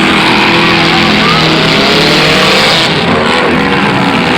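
Demolition derby cars' engines running and revving loudly, several at once, with voices mixed in.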